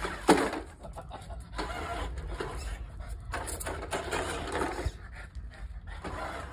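Frenchton dog making a string of short vocal sounds while playing, the loudest just after the start and several quieter ones following.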